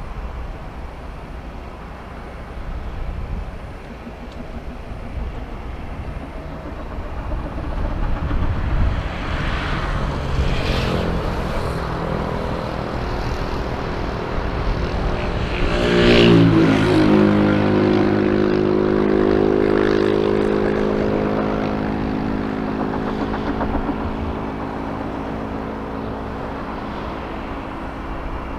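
Airliner passing close by: its engine rumble builds, then its engine tones sweep down in pitch as it goes past, loudest about sixteen seconds in. A steady, lower drone follows and slowly fades.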